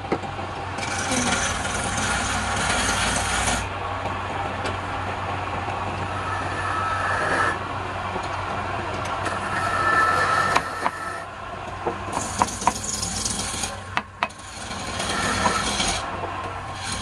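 Metal lathe chuck being tightened with a T-handle chuck key onto a square wooden blank: stretches of grating metal scraping as the key turns, and several sharp metallic clicks in the second half, over a steady low hum.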